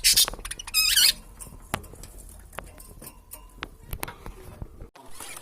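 Budgerigars chattering and warbling: two loud, shrill bursts of chirping in the first second, then scattered clicks and softer chatter.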